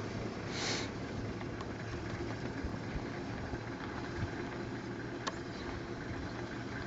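A vehicle engine idling with a steady low hum, with a brief hiss about half a second in and a faint click later on.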